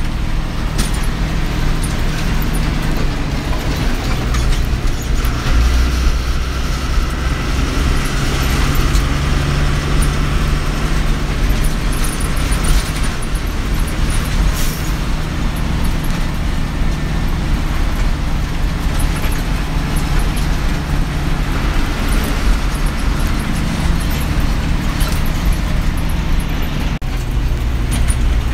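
Engine and road noise of a Tata bus under way, heard from inside the cabin: a steady low drone with tyre noise and occasional rattles.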